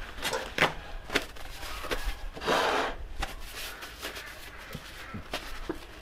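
Handling noises on a kitchen counter: a few light knocks and taps, with a short rubbing, scraping noise about two and a half seconds in.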